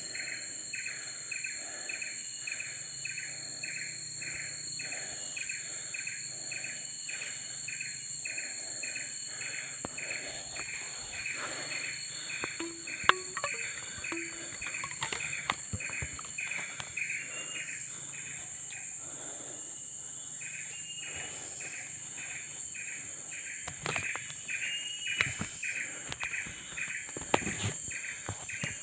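Insects shrilling in a steady high drone, with a rhythmic chirping about three times a second that pauses for a few seconds about halfway through and then starts again, and a few faint bird calls.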